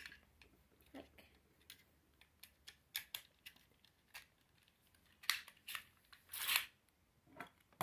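Plastic Beyblade launcher being handled, its cord pulled through: a scatter of small plastic clicks, then two short scraping swishes about a second apart near the end.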